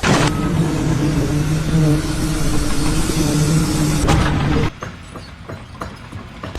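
An engine running steadily with a low hum, cut off abruptly after about four and a half seconds, followed by quieter scattered clicks and knocks.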